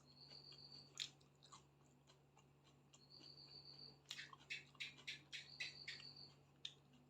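Faint chewing and mouth sounds of a person eating chicken and rice: soft wet clicks and smacks, busiest from about four to six seconds in.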